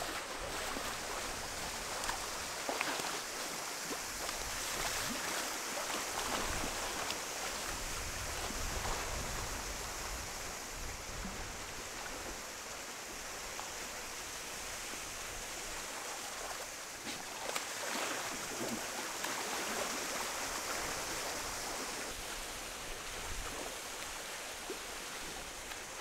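Steady hiss of rain falling on the open water of a pool.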